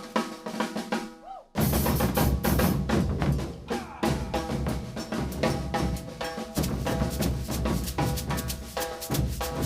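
Brazilian percussion ensemble playing an ijexá rhythm on drums and percussion: a few lighter strokes at first, then the full group comes in loudly about a second and a half in and keeps up a dense, steady rhythm.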